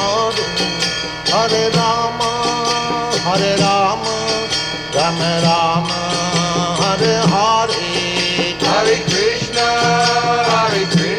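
Devotional kirtan: a voice chanting long, wavering sung phrases in a mantra style over a steady low drone.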